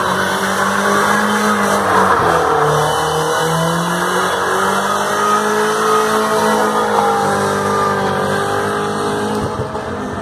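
BMW E36 drifting: its engine held high in the revs, the pitch wavering up and down as the throttle works, over the hiss of spinning, squealing rear tyres.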